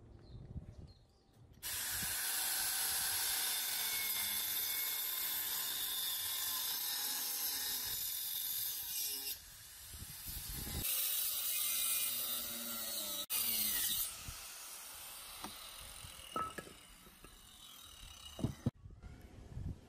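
Electric angle grinder cutting into a wooden beam: it starts abruptly about two seconds in and runs as a loud, steady whining hiss. It eases briefly near the middle and runs more quietly over the last few seconds, with a few sharp knocks, before it cuts off.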